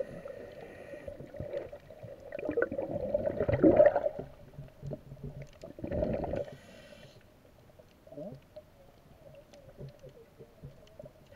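Scuba diver breathing through a regulator underwater: two exhalations come out as loud rumbling bubble bursts, with a thinner hiss of inhaled air between them. A faint steady hum and a few faint clicks carry on through the quieter stretch near the end.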